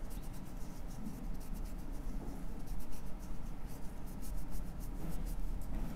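Lint-free nail wipe soaked in gel remover rubbed briskly over fingernails, a run of quick, scratchy rubbing strokes to clean the nail surface before gel goes on.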